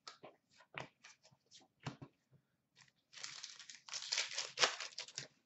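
Hockey trading cards being handled and shuffled by hand. There are a few light clicks and taps, then, about three seconds in, nearly two seconds of dense rustling and crinkling.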